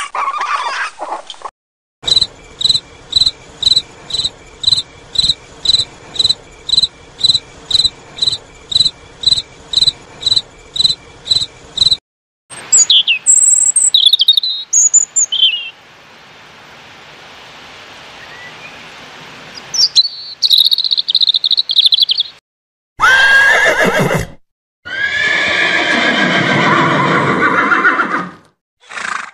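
Raccoons chittering briefly, then a cricket chirping in an even rhythm of about two chirps a second for some ten seconds. A European robin follows, singing short high phrases, and near the end a horse neighs twice in long whinnies that fall in pitch.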